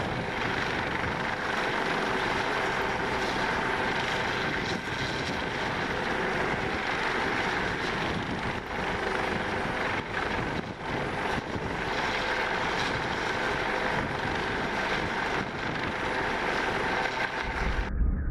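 Helicopter running overhead: a steady, dense rush of turbine engine and rotor noise with a steady whine over it, which cuts off abruptly near the end.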